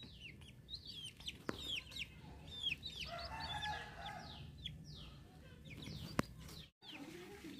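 Aseel chicks peeping: many short, high chirps falling in pitch, in quick succession, with a lower, longer call about three seconds in. Two sharp clicks cut through, the louder one near the end, and the sound drops out for a moment just after it.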